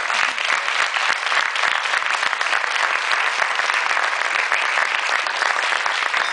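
Audience applauding steadily, many hands clapping together at the close of a talk.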